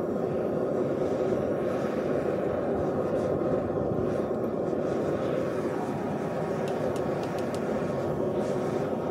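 Gas burner of a small melting furnace running at full flame with a steady roar, heating a crucible of molten copper. A few faint ticks come near the end.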